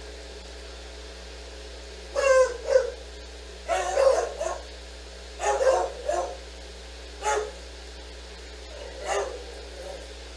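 A dog barking: a string of short barks, singly and in quick pairs, starting about two seconds in. A steady low hum of room noise runs underneath.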